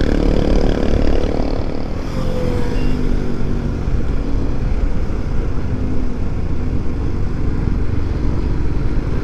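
Motorcycle engine running while riding at a steady pace, with a dense low rumble of wind noise on the microphone.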